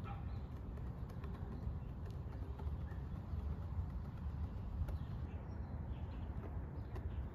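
Low, steady outdoor rumble of wind on the microphone, with a few faint soft taps of hands on a basketball and faint bird chirps.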